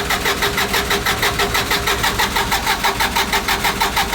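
Kubota D905 three-cylinder diesel engine cranking over on its starter in a steady, even rhythm of about six beats a second. The injector lines are cracked loose, so the cranking pumps fuel up through them to purge trapped air after the fuel system has been bled.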